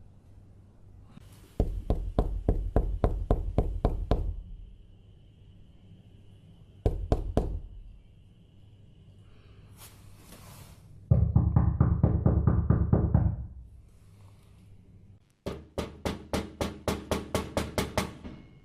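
Rapid knocking in four runs of several strokes a second, with pauses between them. The third run is a denser, heavier pounding. A faint steady high tone sits under the first half.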